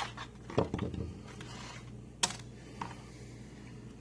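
A few irregular sharp clicks and knocks of screwdrivers and their packaging being handled. There is a duller thump just over half a second in, and the loudest click comes a little past two seconds.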